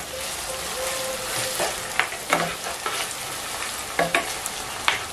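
Chopped onion, ground crayfish and blended okra sizzling in hot palm oil in a nonstick pot, stirred with a spatula that taps against the pot a few times.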